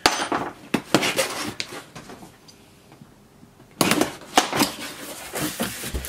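Cardboard box being opened by hand: sharp knocks and scrapes of the cardboard, a short quiet spell about two seconds in, then a run of scraping and rustling as the flaps are pulled open near the end.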